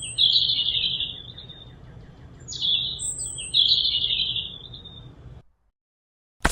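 Bird calls twice over: each time a brief high chirp, a falling slur, then a long buzzy trill. The sound cuts off abruptly to silence near the end, followed by a sharp click.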